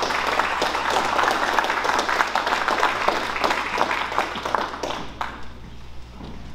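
Small audience applauding, the clapping fading out after about five seconds.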